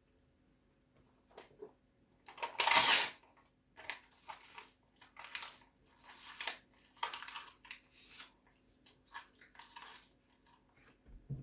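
A loud rustle of paper about two and a half seconds in, then a run of short, irregular crunchy chews as a person eats a printed paper picture.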